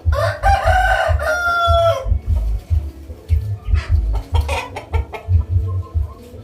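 A rooster crows once, a loud call of about two seconds ending on a held note, followed a couple of seconds later by shorter clucking calls. A low rhythmic thudding beat runs underneath.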